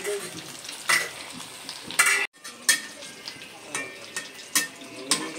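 Battered fish pieces deep-frying in hot oil in an iron wok, sizzling steadily, with several sharp metal clinks of a utensil against the wok or dishes, the loudest about two seconds in.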